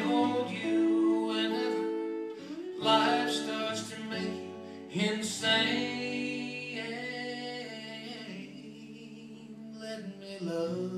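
A live acoustic country song: a strummed acoustic guitar with a lead guitar playing held notes over it.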